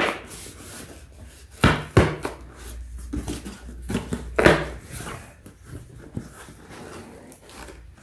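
Cardboard shipping box being pried and torn open by hand, its heavy brass staples pulling loose with several sharp pops amid the rustle and tear of the cardboard; the loudest snaps come about two seconds in and again about four and a half seconds in.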